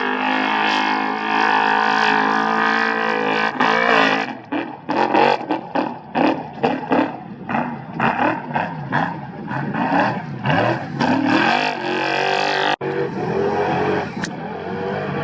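Off-road race vehicle engine at racing speed: a steady high-revving note for about four seconds, then the throttle chopped on and off in quick bursts with the pitch rising and falling. A sudden break near the end, then the engine note again.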